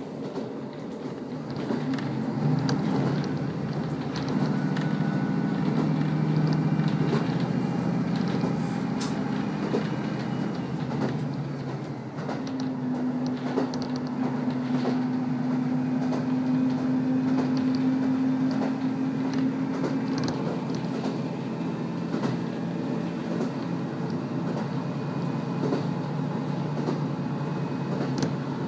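KiHa 54 diesel railcar heard from inside the cabin while under way: the diesel engine's steady drone with wheels clicking over the rails now and then. The engine note changes about 12 seconds in and drops lower after about 20 seconds.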